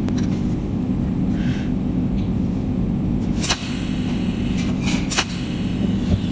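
Cold welding machine's tungsten needle striking pulsed arcs on the joint of two metal rods: two sharp cracks about a second and a half apart, with a faint hiss between them, over a steady low hum.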